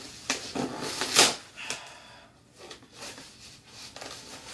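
Packaging being handled and opened: irregular rustling and scraping noises, loudest about a second in.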